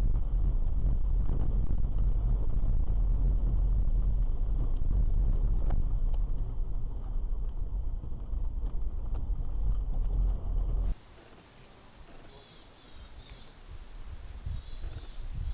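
Car road noise heard from inside the cabin on a dashcam: a steady low rumble of tyres and engine. About eleven seconds in it cuts off suddenly to a quieter outdoor recording with high bird chirps and a low rumble that grows near the end.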